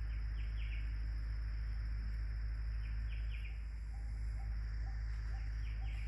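Forest birds calling over a steady high insect drone and a low rumble. A group of three short, high notes comes back every two to three seconds. From about halfway, a lower short note repeats about twice a second.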